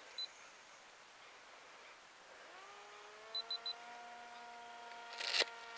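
Onboard RunCam 2 action camera beeping as its recording is switched off: a single short high beep, then three quick high beeps a few seconds later. A steady hum that slides up in pitch and settles runs under the beeps, and near the end there is a brief loud rustle.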